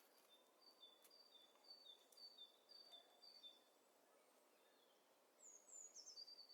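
A songbird faintly repeating a two-note phrase about twice a second, the notes alternating between a higher and a slightly lower pitch, until about halfway through. A few quick falling notes come near the end, over a soft hiss of outdoor ambience.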